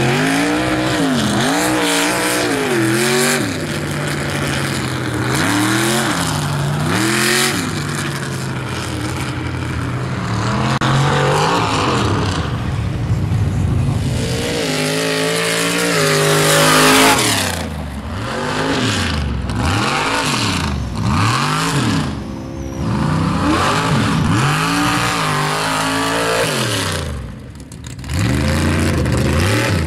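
Engines of lifted mud trucks on big tractor tires being revved hard again and again, the pitch sweeping up and down in repeated surges. The sound comes from several trucks in turn.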